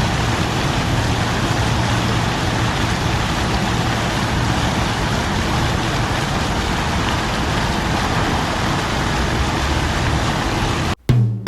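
Steady city traffic noise with a low engine hum under it, cutting off abruptly near the end.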